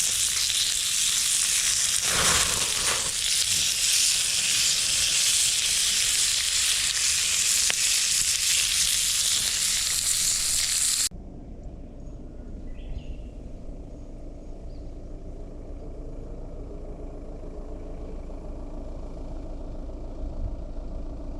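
Food frying with a loud, steady sizzle, which cuts off suddenly about eleven seconds in and gives way to a low steady rumble.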